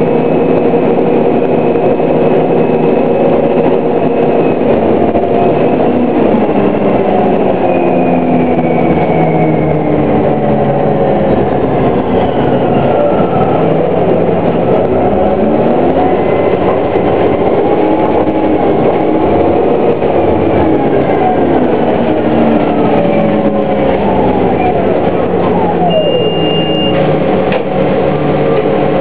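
Orion VII hybrid-electric bus, with a Cummins ISB diesel and BAE HybriDrive electric drive, running under way: a steady engine drone with electric-drive whines that glide up and down in pitch as it speeds up and slows. A short, steady high tone sounds near the end.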